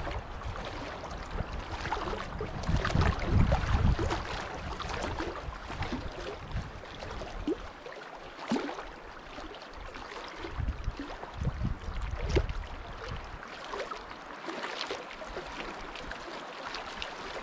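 Wind gusting on the microphone in low rumbles that rise and fall, with light scattered rustles and knocks from gear being handled on dry ground.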